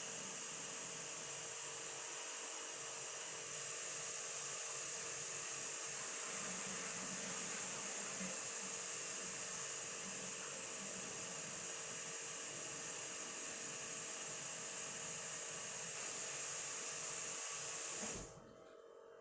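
Water running steadily from a sink tap while a new coffee maker part is rinsed out, stopping abruptly near the end.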